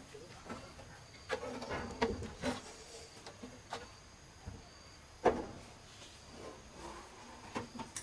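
Irregular knocks and taps of building work, the loudest a sharp knock about five seconds in, over a faint steady high-pitched hum.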